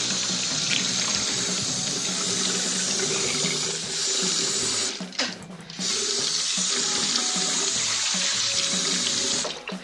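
Water running from a chrome tap into a washbasin, splashing over cupped hands as she rinses out her mouth. The flow dips briefly a little after halfway and falls away just before the end.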